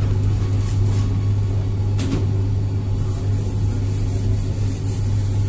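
Steady low mechanical hum, with one short knock about two seconds in.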